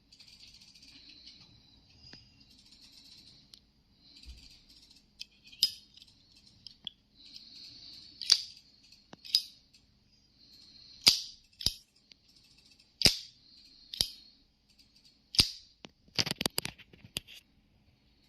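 Zippo lighter handled over and over: its metal lid snapping open and shut with sharp clicks a second or two apart, between softer scraping stretches, and a quick rattle of clicks near the end.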